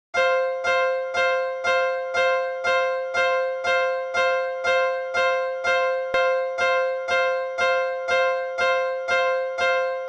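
Level crossing warning bell: a single ringing tone struck about twice a second in a steady rhythm, each strike fading before the next.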